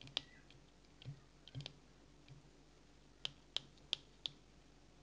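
Faint, sharp clicks of fly-tying thread and bobbin being wrapped around a titanium wire shank in a vise. A few soft ones come early, then a run of four evenly spaced clicks, about three a second, near the end.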